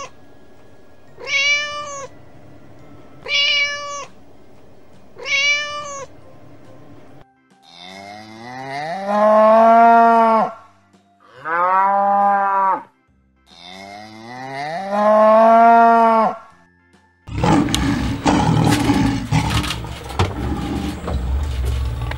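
A cat meowing three times, about two seconds apart. Then a cow gives three long, low moos. Near the end a lion makes a rough, noisy growl.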